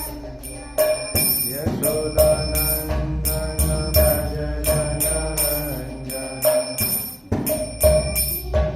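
Kirtan music: small hand cymbals struck on a steady beat about twice a second, ringing brightly over a held melody.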